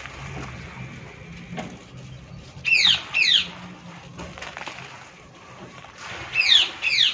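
Soft crumbling and sifting of dry, gritty soil clumps broken apart by hand, with faint crackles. A bird calls loudly twice, each time two quick, sharp notes falling in pitch: about three seconds in and again near the end.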